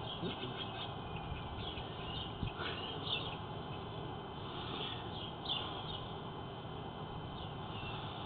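Birds chirping in short, scattered calls over a steady background noise.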